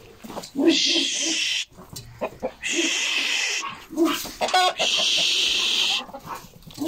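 A person shooing chickens with three long hissing "shhh" sounds, each about a second long, with chickens clucking and squawking in between.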